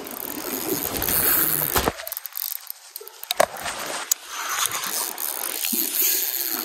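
Spinning reel rattling and clicking irregularly while a hooked king salmon is fought in a fast current. A dense rushing noise of stream water fills the first two seconds before the clicks take over.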